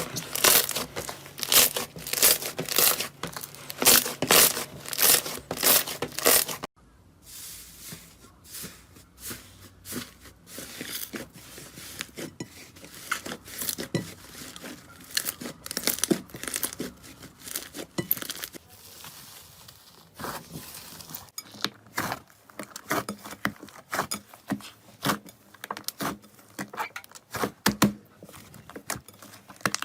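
Slime being pressed and worked by hand, giving a dense run of rapid little pops and crackles. About seven seconds in it cuts abruptly to a quieter clip of softer, sparser pops, which grow busier again later on.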